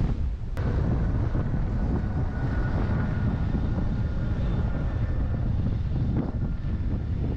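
Wind buffeting the microphone, a dense low rumble, with a single click about half a second in and a faint steady whine in the background for a few seconds.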